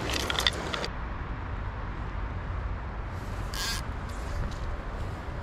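Creek water running steadily over a shallow riffle, with a few short clicks in the first second and a brief hiss about three and a half seconds in.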